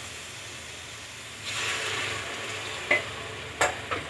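Onion and spice masala sizzling in an aluminium pressure cooker as it is stirred and scraped with a wooden spatula. The sizzle swells about a second and a half in as a little water goes into the hot masala, and the spatula knocks sharply against the pot twice near the end.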